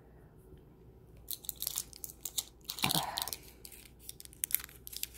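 Plastic snack wrapper crinkling and tearing as it is handled and opened: a quick run of sharp crackles starting about a second in, with a louder rustle around three seconds in.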